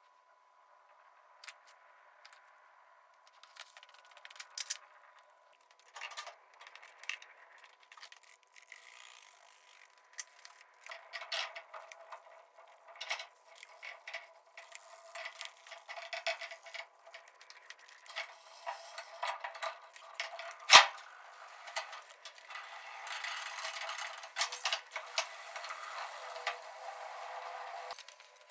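Small hard objects being handled: scattered clicks, rattles and scrapes, one sharp loud click about two-thirds of the way through, and a denser scratchy rustle near the end.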